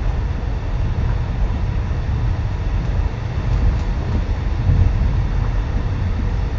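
Inside a suburban electric passenger train running at speed: a steady low rumble of wheels on the track and the carriage in motion.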